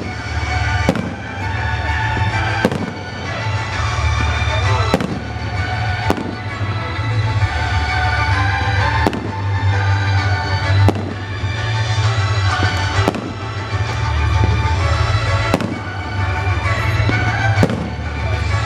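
Fireworks salute shells bursting, a sharp bang every second or two, over loud music with a heavy bass.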